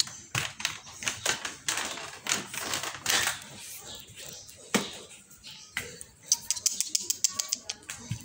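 Rapid, irregular sharp clicks and taps in quick runs with short gaps between them.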